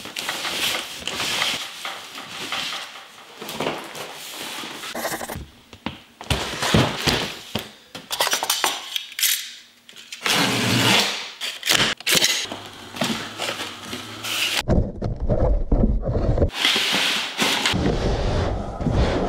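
Large cardboard shipping box being handled and unpacked: cardboard scraping and rustling, with flaps and packing pulled about and several sharp knocks.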